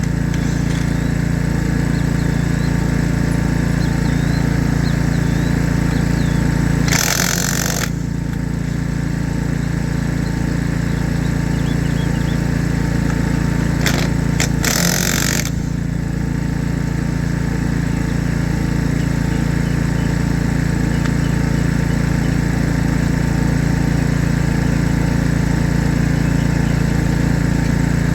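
An engine running steadily at idle, with two short noisy bursts of about a second each, one about seven seconds in and one about fifteen seconds in.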